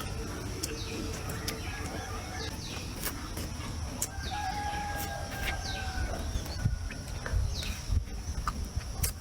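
A rooster crows once, a long drawn-out call starting about four seconds in, over repeated short, falling bird chirps and scattered sharp clicks.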